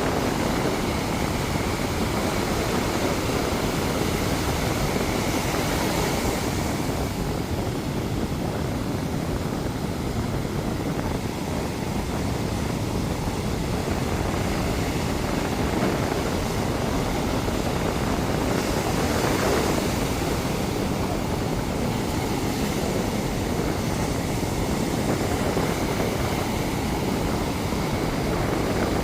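Ocean surf: a steady roar of waves washing in, with one wave breaking a little louder about two-thirds of the way through.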